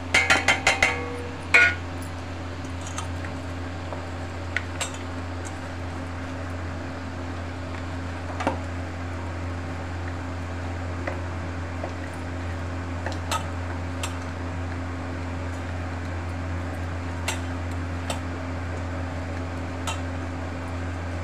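A steel plate tapped several times in quick succession against a steel bowl, ringing metal clinks, then once more, knocking spices off onto raw chicken. After that, hand-mixing the marinade into the chicken in the bowl, with occasional light clicks over a steady low hum.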